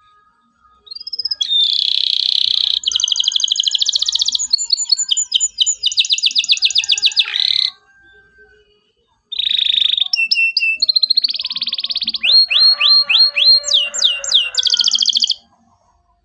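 Domestic canary singing two long song phrases of rapid trills, rolls and repeated chirps, with a short pause about eight seconds in.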